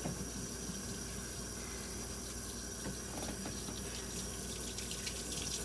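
Kitchen tap running a steady stream of water into the sink.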